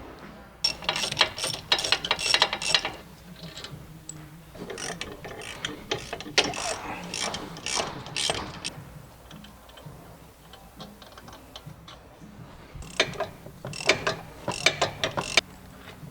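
Hand ratchet with an E18 Torx socket clicking rapidly in three bouts as the bolts holding the front wheel hub are backed out.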